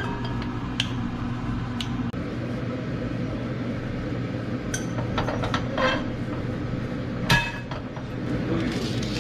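Metal clinks and knocks of a non-stick saucepan being handled on a gas stove: the clip-on handle and the pot knocking against the burner grate as it is tilted and set back down. A steady hum runs underneath.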